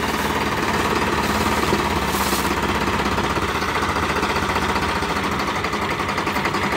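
New Holland 3630 tractor's three-cylinder diesel engine running steadily with a fast, even pulsing clatter, hitched to a trolley loaded with sugarcane.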